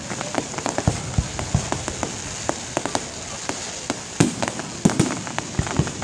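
Fireworks display: a dense, irregular run of pops and crackles from bursting shells over a steady hiss, with a few louder bangs after the middle.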